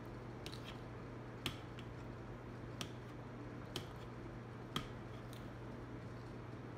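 Close-up eating sounds as fork-twirled pancit noodles are eaten: four sharp clicks about a second apart and a few fainter ticks over a steady low hum.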